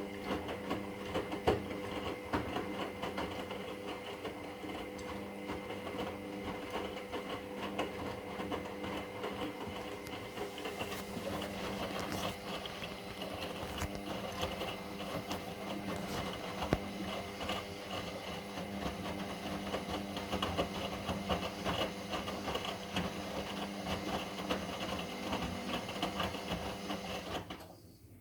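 Indesit MyTime EWD71452 washing machine tumbling its drum in the wash phase: the motor hums steadily under a patter of small knocks and clicks from the turning drum and load. The motor stops near the end as the drum pauses between tumbles.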